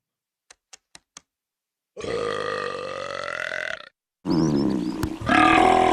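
Two long, drawn-out belches: the first starts about two seconds in and lasts about two seconds, and the second follows just after four seconds and gets louder partway through. A few faint ticks come before them in near silence.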